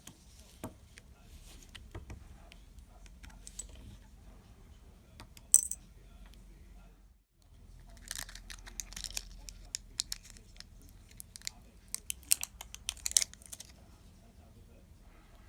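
Small metal clicks, taps and scraping from working on a wristwatch's snap-on case back and battery with small tools. One sharp click comes about five and a half seconds in, and a busy run of clicks and scraping fills the second half.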